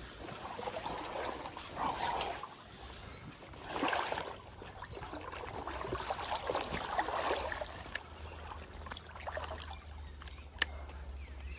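Shallow river water trickling and splashing, swelling every two or three seconds, with one sharp click near the end.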